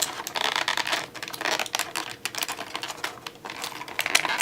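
Toy packaging and small plastic playset pieces being handled during an unboxing: a quick, irregular run of clicks and taps.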